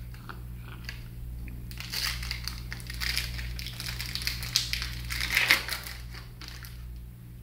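Rustling, crinkling handling noise with many small crackles, swelling about two seconds in and loudest near the middle before dying away, over a steady low hum.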